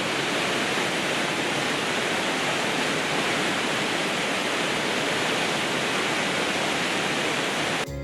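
Fast-flowing water rushing steadily, an even, unbroken roar. Near the end it cuts off abruptly and acoustic guitar music starts.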